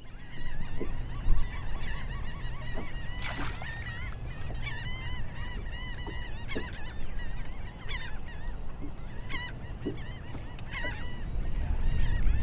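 Birds calling over and over, many short wavering calls overlapping, with a steady low rumble underneath. A single sharp knock about a second in.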